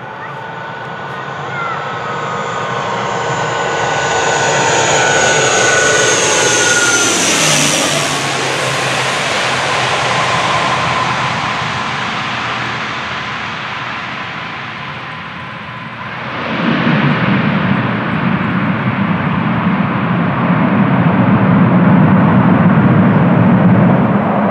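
ATR turboprop airliner landing close by: its propeller and engine whine falls in pitch as it passes about seven seconds in. A sudden deeper, louder rumble follows about two-thirds of the way through.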